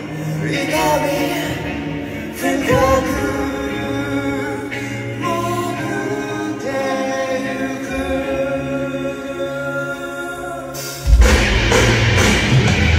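A live rock band performing, with a male lead voice singing over a sparse backing. About eleven seconds in, the full band comes in suddenly and loudly.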